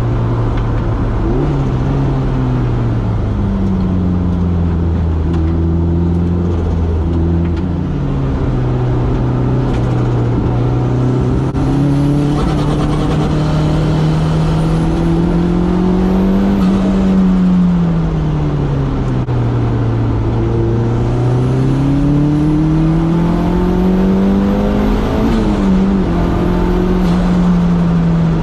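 Turbocharged Toyota 3S-GTE inline-four engine in an AW11 MR2, heard onboard at track pace, its revs climbing and falling several times through the lap, with a faint high turbo whistle during the climbs.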